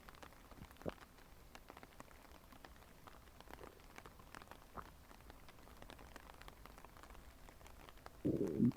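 Human stomach gurgling picked up close: faint scattered small pops and bubbling, then near the end a short, louder growl with a wavering pitch, about half a second long.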